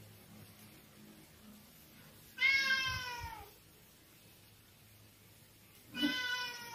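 A cat meowing twice: a drawn-out meow about two and a half seconds in, sliding slightly down in pitch, and a shorter one near the end.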